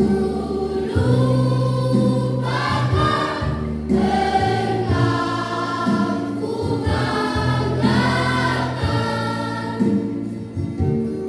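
A junior high school choir singing together in phrases over long held low accompaniment notes.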